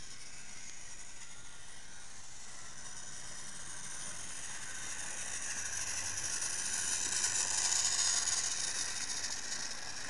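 TrackMaster Sir Handel battery-powered toy engine running on plastic track while pulling three slate trucks: a steady whir of its small motor and gears with the rolling of the wheels. It grows louder about seven to eight seconds in as the train passes close, then eases off.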